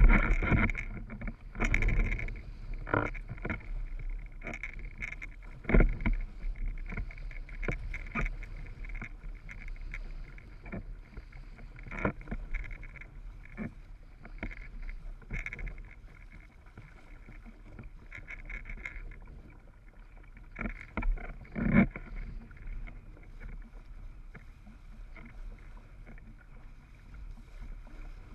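Windsurf board sailing over choppy water: irregular knocks and splashes of the hull against the waves over a steady low wind rumble. The knocks grow sparser near the end.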